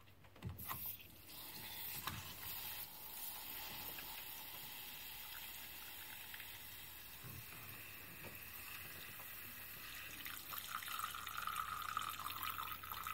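Water trickling from the opened drain port of a quarter-turn shut-off valve into a small cup, faint and steady, growing a little louder near the end. It is the water left in the outdoor hose-tap supply line being drained so that the line cannot freeze and burst.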